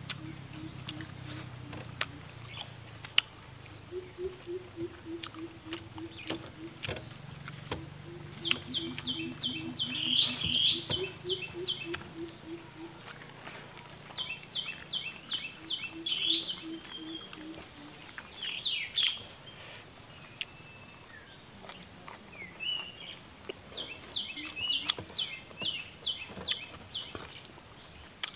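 Close eating sounds: mouth and chewing clicks and fingers on a metal tray as rice and fish are eaten by hand. Behind them is a steady high insect drone, with birds calling in quick runs of repeated notes and low repeated calls in the first half.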